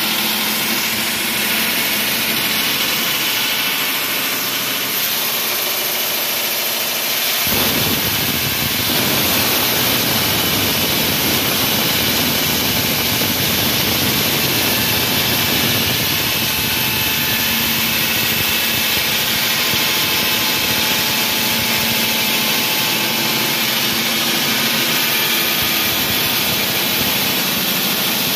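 Concrete wall saw running steadily with a loud, even whine and grinding noise. About seven seconds in the sound gets louder and fuller, and it stays that way.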